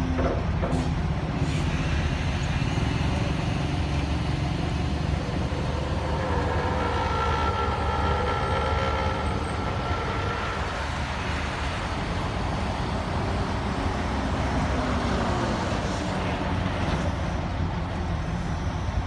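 Diesel engines of heavy construction machinery running steadily under load, with a higher whine joining for several seconds midway.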